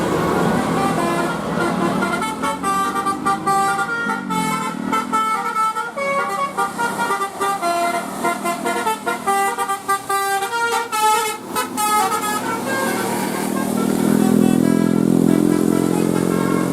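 Indonesian 'telolet' multi-tone bus horn playing a quick melody of stepped notes for about ten seconds, starting about two seconds in, over a running vehicle engine. The engine swells and is loudest near the end.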